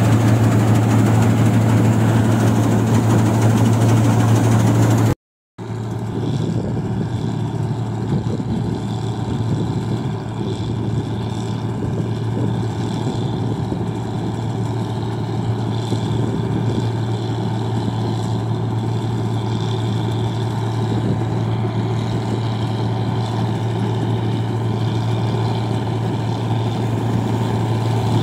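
New Holland 1545 combine harvester running steadily while harvesting rice, its engine a steady low hum under the clatter of the header and threshing works. The sound drops out for half a second about five seconds in, then carries on a little quieter.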